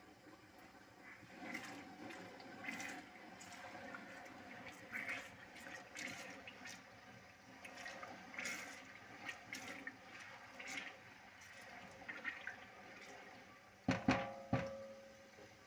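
Tomato stew frying in oil in a metal pot, sizzling and bubbling in uneven bursts while a wooden spatula stirs. Near the end, two or three sharp knocks and a short metallic ring as the spatula strikes the pot.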